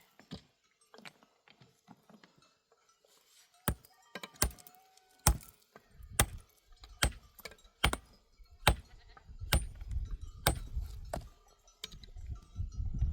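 A regular series of sharp knocks, a little over one a second, starting a few seconds in, with a low rumble building beneath them.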